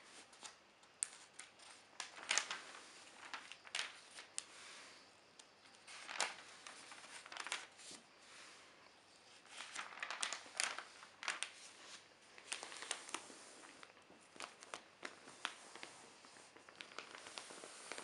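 Newspaper pages being turned and smoothed by hand: soft rustling of newsprint broken by clusters of crisp crackles and crinkles, strongest as a page is flipped over about ten seconds in.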